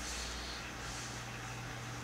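Calligraphy pen scratching softly across paper in short strokes, about once a second, over a low steady electrical hum and room noise.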